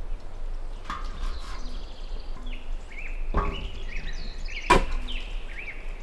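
Wind rumbling on the microphone while birds chirp in short falling calls, with a few sharp knocks; the loudest knock comes a little past the middle.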